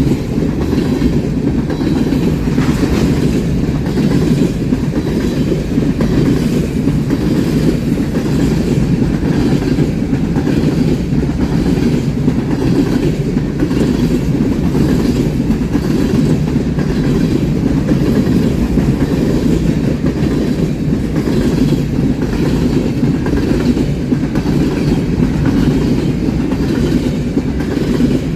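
Train cars rolling past at steady speed: a continuous loud rumble of wheels on rail with repeated clickety-clack as the wheels cross rail joints.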